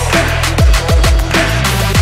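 Electronic background music with a steady beat of heavy kick drums and bass.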